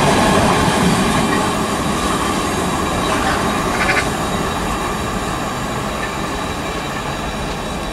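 Freight train's container wagons rolling past on the rails and receding, the wheel noise slowly fading.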